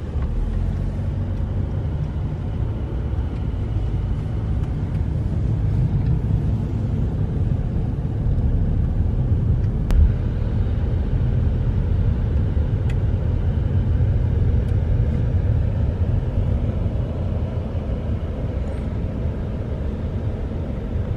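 Steady low rumble of a car driving slowly, its engine and tyres heard from the moving vehicle, with a single sharp knock about ten seconds in.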